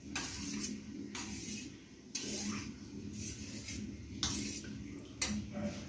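A fork stirring cornflour slurry in a stainless steel bowl, scraping up cornflour that has settled on the bottom, in a series of short, uneven swishing scrapes.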